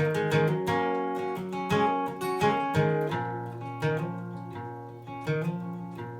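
Acoustic guitar playing an instrumental break between sung verses of a western song, a run of picked and strummed notes that thins out to fewer, ringing strums in the second half.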